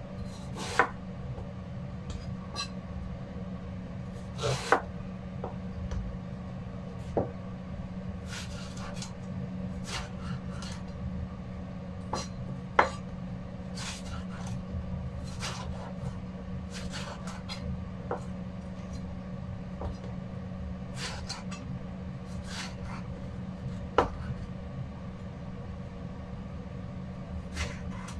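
A chef's knife cutting long purple eggplant on a wooden cutting board: irregular knocks of the blade striking the board, with some rubbing and handling of the cut pieces, over a steady low hum.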